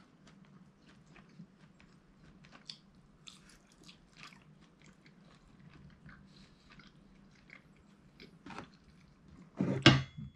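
A person chewing a mouthful of beef steak close to the microphone, with many small, faint wet clicks and smacks. Near the end there is one brief, much louder sound.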